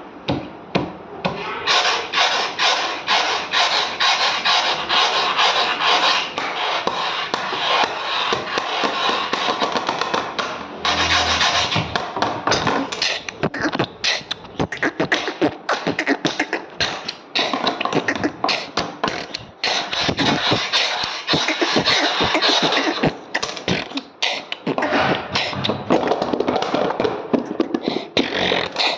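Beatboxing: fast, rhythmic vocal percussion made of clicks, snare-like hisses and short thumps, kept up throughout.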